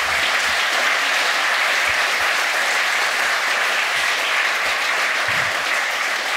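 Audience applauding steadily, a dense sustained clapping from a seated crowd at the end of a talk.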